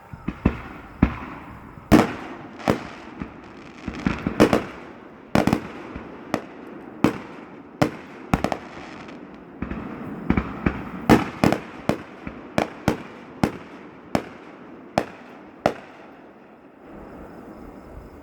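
Fireworks going off in quick succession: a long string of sharp bangs with crackling between them, stopping a couple of seconds before the end.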